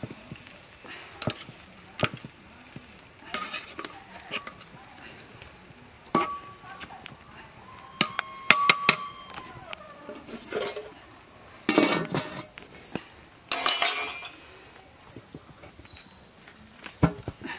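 Scattered clinks and knocks of metal cooking utensils and pots, some ringing briefly, with quick clusters of clatter about halfway through and again toward the end.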